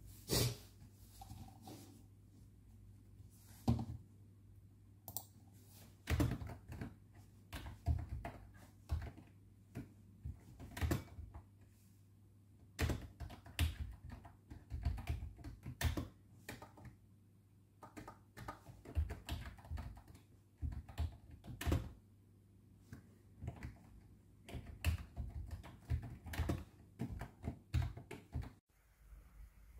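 Typing on a computer keyboard with round, typewriter-style keycaps: irregular runs of key clicks broken by short pauses, over a steady low hum. The clicking cuts off abruptly about a second before the end.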